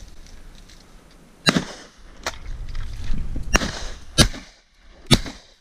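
Several sharp 12-gauge shotgun shots at flushed game, about five over four seconds, each with a brief echo.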